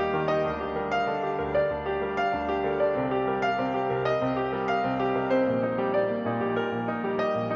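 Background piano music: a slow piece of sustained notes over changing bass notes.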